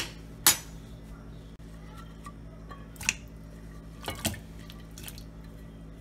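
Sharp clinks of a stainless steel pot and a ceramic plate, then cut cassava pieces slid off the plate into the pot of water with a few knocks and small splashes, over a low steady hum.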